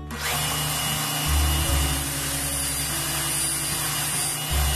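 Belt grinder with a steel knife blade pressed against the running belt over its contact wheel: a steady, loud grinding hiss that starts abruptly just after the beginning.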